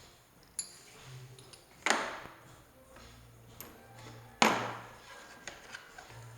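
Two sharp knocks about two and a half seconds apart, each with a short ringing tail, and lighter clicks in between, from hard drill parts and accessories being handled and fitted.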